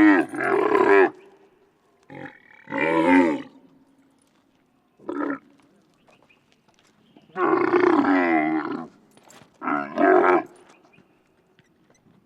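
Camel moaning and calling: a series of loud, pitched groaning calls, each up to about a second and a half long, with short pauses between, the longest call coming a little past the middle.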